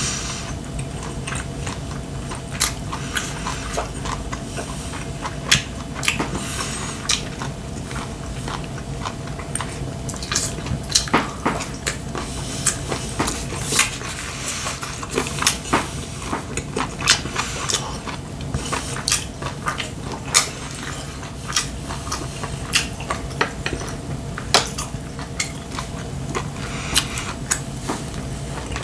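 Close-up eating sounds: chewing, with chopsticks clicking irregularly against plates and bowls, over a steady low hum.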